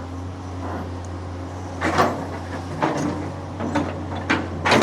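Long-arm excavator's diesel engine running steadily, with a series of sharp clanks from the arm and bucket starting about two seconds in and coming closer together near the end.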